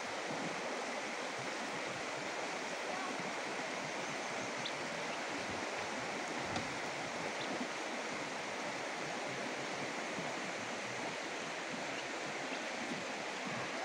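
A shallow stream running over rocks: a steady rush of water.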